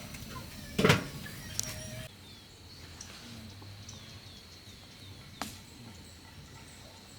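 A sharp knock about a second in and a fainter one later, with faint short falling bird chirps and a thin steady high tone in the background.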